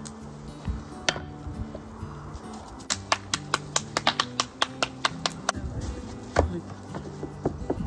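Background music with held notes. About three seconds in, a quick run of a dozen or so sharp pats as hands flatten a ball of tortilla masa, then a single dull thump near the end as the wooden tortilla press is pushed shut.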